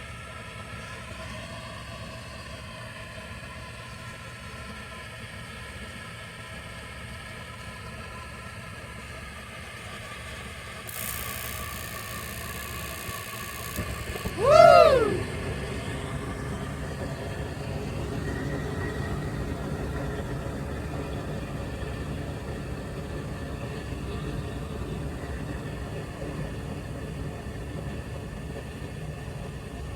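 Natural-gas Rheem rooftop unit starting a heating cycle on its new ignition control board. The draft inducer fan hums steadily, a hiss starts about eleven seconds in, and then the burner lights with a brief loud tone that swoops up and down. From then on a steady low burner rumble runs under the fan.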